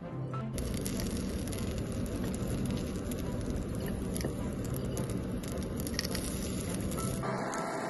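Batter deep-frying in hot oil in a miniature iron kadai: a dense, steady sizzle with fine crackles that sets in about half a second in. Near the end it turns duller and loses its hiss.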